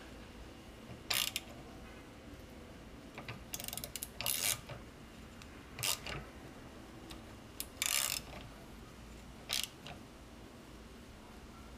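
Hand ratchet wrench clicking in short bursts of strokes, about half a dozen of them spread out with pauses between.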